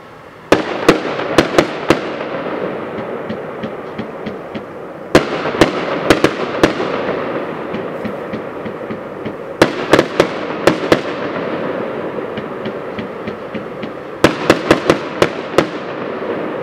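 Aerial fireworks bursting overhead: four volleys of sharp bangs about four and a half seconds apart, each a quick string of several reports. Each volley is followed by a crackling hiss that slowly fades.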